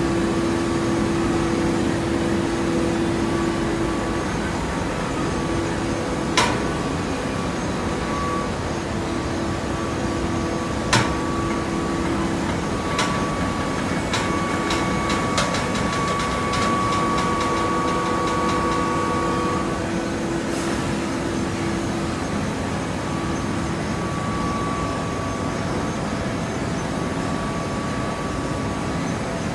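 Conveyor and automatic horizontal baler running: a steady machine drone with a constant hum. Two sharp bangs come several seconds apart, then a quick run of clicks.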